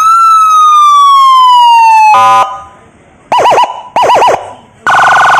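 Phantom YL-16 100-watt, 12-volt siren speaker cycling through its tones. First a long sweep that rises and slowly falls, then a short horn blast about two seconds in, two short bursts of fast warbling chirps, and a steady loud horn blast near the end.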